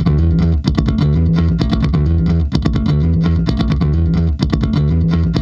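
Background music: bass and electric guitar over a steady drum beat.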